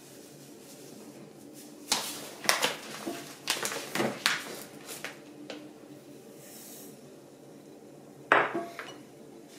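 Kitchenware tapping and clinking against a ceramic bowl: a run of taps and clinks starting about two seconds in and lasting about three seconds, then one sharper knock near the end.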